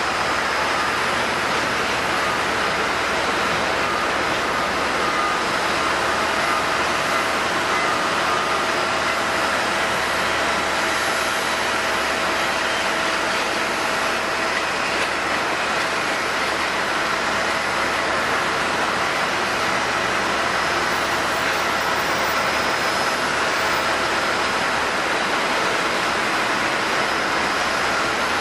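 Jet airliner engines running at steady power: a continuous rushing noise with a few held whining tones over it.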